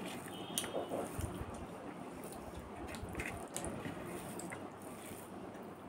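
Close-up eating sounds: fingers mixing and squishing rice on a plastic plate, with chewing and a few soft mouth clicks.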